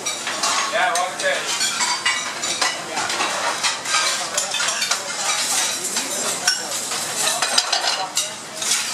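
Busy commercial kitchen during service: steady clatter and clink of metal pans, pots and utensils over a frying sizzle.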